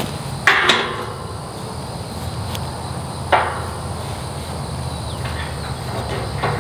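Sharp metallic clanks of a steel wrench knocking against a steel gate post and J-bolt hinge while a hinge bolt is loosened: a quick double clank about half a second in and a single clank about three seconds in.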